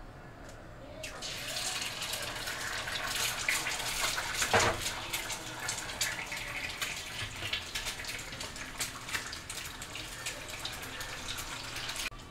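Eggs frying in hot oil in a frying pan: a dense crackling sizzle that starts about a second in, as the egg hits the oil, with one louder spurt a little before halfway.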